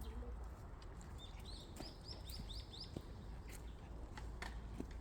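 A small songbird singing a quick run of about seven high chirps, starting about a second in, with a few faint clicks around it.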